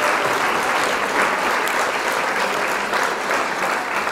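Crowd applause, a dense and steady clapping, laid in as a sound effect.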